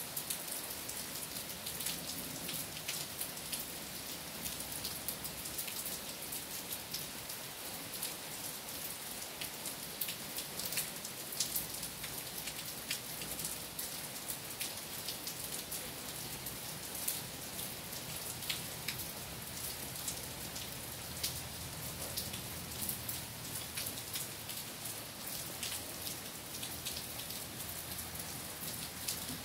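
Steady rain falling on trees and waterlogged ground, with frequent sharp ticks of single drops landing close by.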